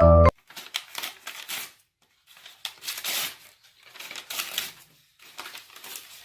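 A run of dry rustling, crackling noises in about five short clusters, with brief quiet gaps between them.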